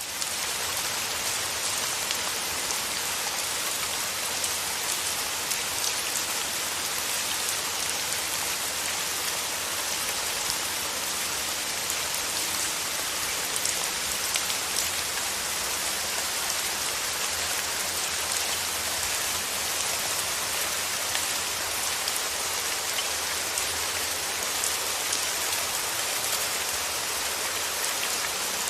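Steady rain falling, an even hiss with many fine drops ticking in it.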